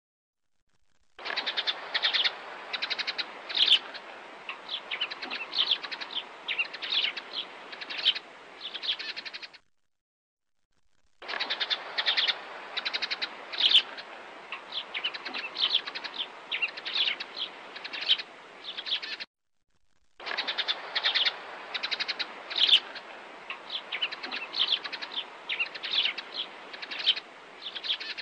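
Sparrows chirping in a busy chatter of short, high chirps. The same recording of about eight seconds plays three times over, with about a second of silence between each.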